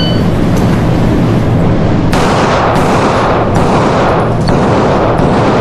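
Handgun shots fired in a string, about four over a couple of seconds starting around two seconds in, over a loud steady rumble.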